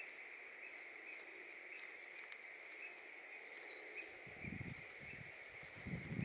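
A steady high-pitched trill from calling animals in the woods around the pond, with faint regular swells. Low rumbling noise comes in about four seconds in and grows louder near the end.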